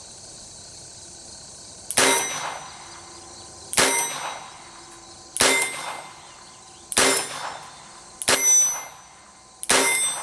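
Six shots from a Colt Officer's Model Match .22 Long Rifle revolver, fired one at a time about a second and a half apart. Each shot is a sharp crack followed by a brief metallic ring.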